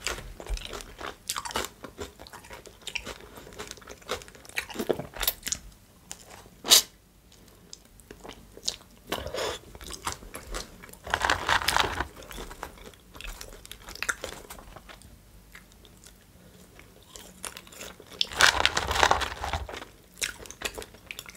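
Close-miked mouth sounds of eating chicken shawarma and french fries: chewing and biting with many short wet clicks, one sharp loud click about seven seconds in, and two louder noisy stretches, one around the middle and one near the end.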